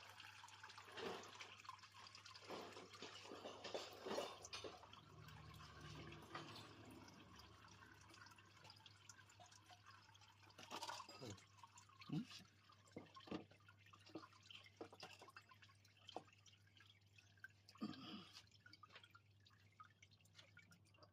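Faint, irregular small clicks and taps, with a steady low hum underneath.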